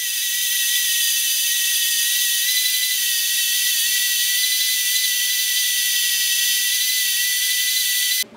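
Benchtop spindle sander running, its drum sanding the edge of a cherry board: a steady high-pitched whine over hiss, which cuts off suddenly near the end.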